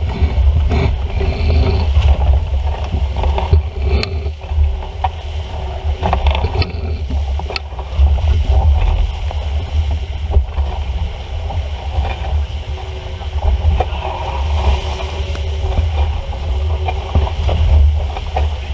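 Wind buffeting the microphone in a heavy, gusting rumble over the rush and splash of water along a sailing boat's hull as it runs fast downwind, with scattered knocks and clicks from the boat.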